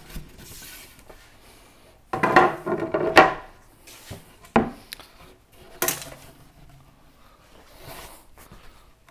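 Plywood panels and a pocket-hole jig being handled: a loud scraping clatter about two seconds in, then a few separate wooden knocks.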